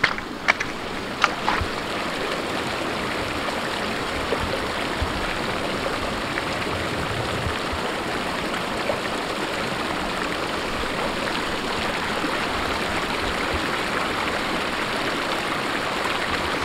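Shallow river running steadily over stones and gravel, an even rush of moving water. A few sharp clicks come in the first second or two.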